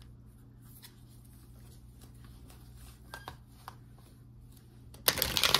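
Faint steady low hum with a few soft clicks, then about five seconds in a short, loud burst of a deck of tarot cards being shuffled by hand.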